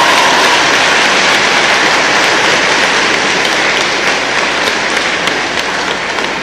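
Crowd applauding after a badminton rally: steady clapping that eases off slightly near the end.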